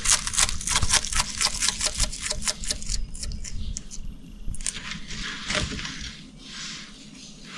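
Quick, dry crackling clicks, about six a second for some three seconds, then fainter and sparser: a dragonfly's body and wings crackling as a bearded dragon crunches it.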